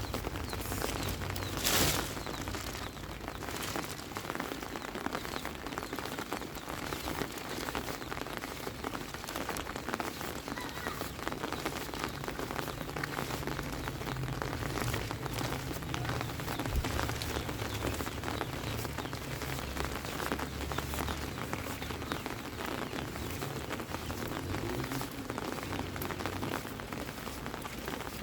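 Heavy rain falling steadily, a dense hiss full of separate drop patters, with a brief louder rush about two seconds in.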